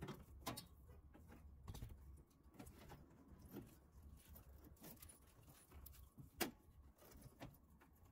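Faint scattered clicks and knocks, with one sharper knock about six seconds in, as a Honda Civic radiator is worked up and out of its mounts past its hoses.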